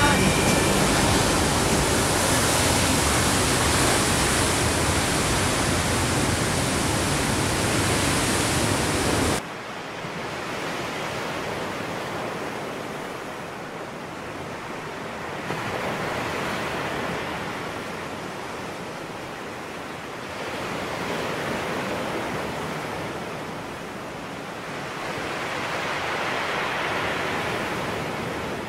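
Ocean surf: a loud, steady rush of waves for about nine seconds, then a sudden cut to a quieter wash that swells and fades every five seconds or so as sets break.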